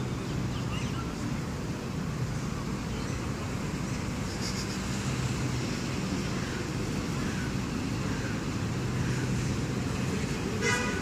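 Steady low hum of distant traffic and city background noise, with a short high-pitched call or squeak just before the end.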